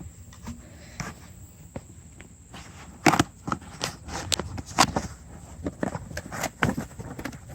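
Irregular sharp clicks and knocks of parts and packaging being handled in a workshop, starting about three seconds in.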